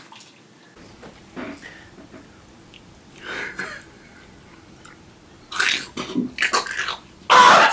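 Faint scattered short noises, then a few sharp noisy bursts, then a person's loud, drawn-out vocal cry near the end, a disgusted reaction to the sauce.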